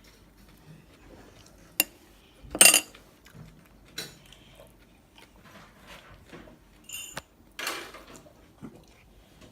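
Cutlery and dishes clinking and knocking at a table during a meal: a handful of separate clicks and knocks, the loudest a short noisy clatter about two and a half seconds in.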